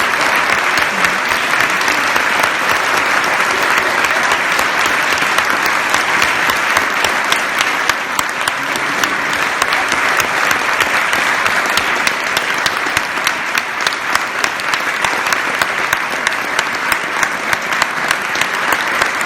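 Concert audience applauding, the claps falling into a steady rhythmic beat in the second half.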